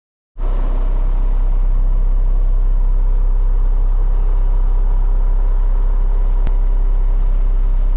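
Cement mixer truck's diesel engine running steadily, heard from inside the cab as a deep, even rumble. It starts abruptly just after the opening, with one brief click about six and a half seconds in.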